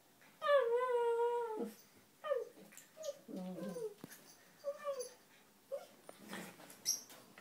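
Small dogs, a toy poodle and a Maltese, vocalising while they play-wrestle. A long whining call lasts over a second, starting about half a second in. Several shorter calls follow, one of them lower-pitched, along with light scuffling.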